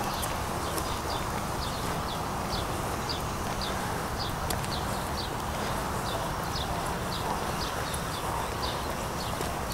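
Footsteps on stone paving at a steady walking pace, about two steps a second, over a steady outdoor background hiss.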